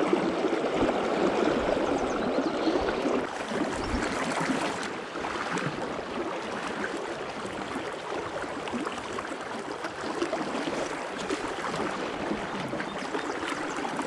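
Shallow river current rushing steadily past, loudest over the first five seconds and then a little quieter and even.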